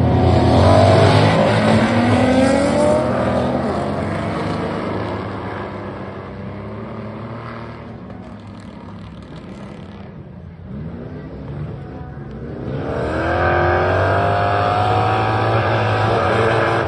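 A pack of autocross race cars accelerating hard on a dirt track, several engines revving up together with rising pitch. The sound fades as the cars pull away, then grows loud again about thirteen seconds in as they come back around and accelerate.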